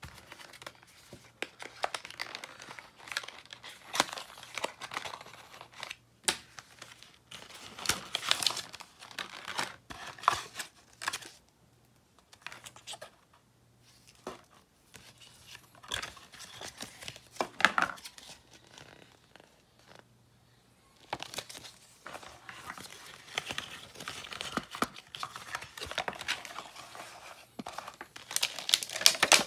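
Cardboard box and clear plastic packaging of a pocket digital scale being opened and handled: irregular rustling and crinkling with sharp little clicks and taps, broken by a few short pauses.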